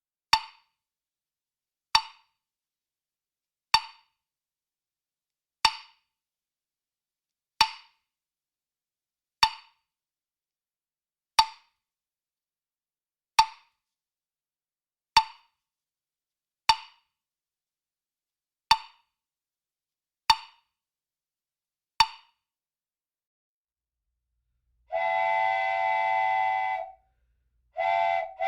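Thirteen sharp single knocks, evenly spaced about two seconds apart, as from a cartoon sound effect. Then a steam-whistle blast, a long one followed after a short break by a second.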